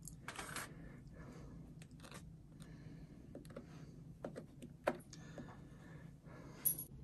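Faint scattered clicks and soft scrapes of a small plastic spreader working caramel over crackers in a foil-lined pan, with one sharper click about two-thirds of the way through. A low steady hum runs underneath.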